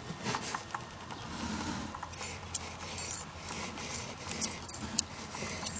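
Handling noise: a run of small, scattered clicks and light rubbing as the turret's steel body, with its pressed-on plastic indexing ring, is picked up and turned over by hand.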